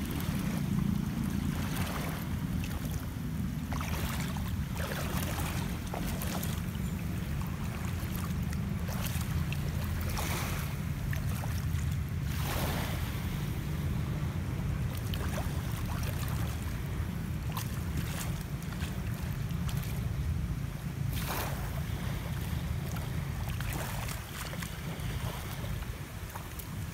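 Wind buffeting the microphone in a steady low rumble, with the wash of shallow sea water and irregular splashes of feet wading through it.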